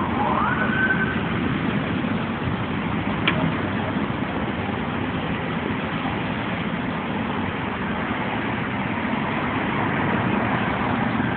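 Steady street traffic and engine noise, with a short siren whoop in the first second that rises in pitch and then holds, and a single sharp click about three seconds in.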